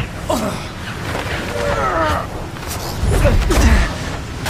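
Film sound mix of wind rushing over the roof of a speeding train, with short strained grunts and groans from the men clinging to it; a heavy, low rush of wind about three seconds in is the loudest part.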